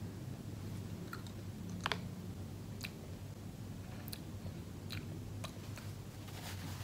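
A person chewing a jelly bean: scattered soft mouth clicks, the sharpest about two seconds in, over a low steady hum.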